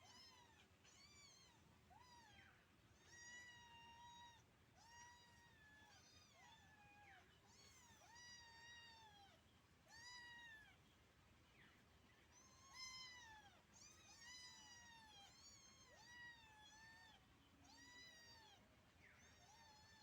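Kitten mewing over and over: high-pitched mews, each rising then falling in pitch, about one a second, faint.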